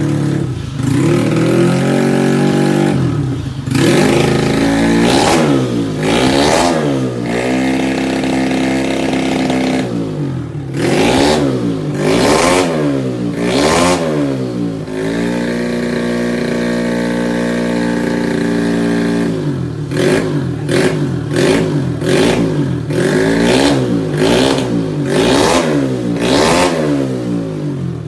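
Yamaha Mio scooter's single-cylinder engine, bored up to 155cc, revved over and over with throttle blips that rise and fall in pitch. It settles to a steady idle for a few seconds midway, then gives a run of quick, short blips toward the end.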